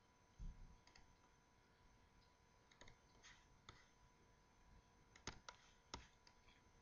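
Near silence broken by a few faint, sharp computer mouse clicks, scattered irregularly, with two close together about five seconds in.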